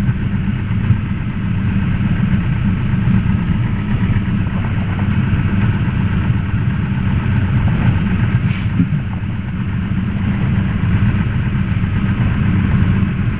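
Piper Archer's four-cylinder Lycoming O-360 engine and propeller running at low power while the plane taxis, a steady low drone heard from inside the cabin.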